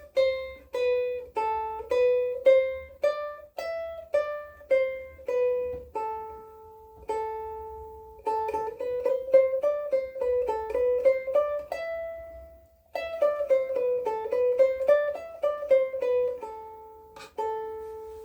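Blue Wing Ukuleles #3 soprano ukulele with Aquila Bblacks strings played solo: a picked melody of single notes, first evenly spaced, then quicker runs, ending on a note left to ring out and fade. The notes ring on after each pluck.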